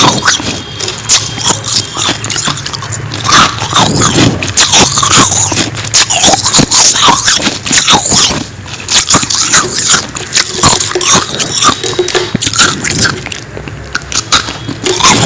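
Close-up crunching and chewing of frost: a dense, uneven run of crisp crunches and scrapes.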